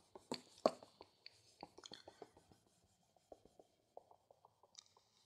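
Faint rubbing of a duster wiping marker off a whiteboard, with scattered light taps against the board in the first couple of seconds.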